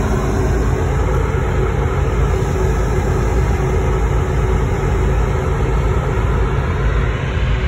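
Steady loud low rumble on a ferry's open deck under way: the ship's engines and machinery with wind on the microphone, and a faint steady hum running through it.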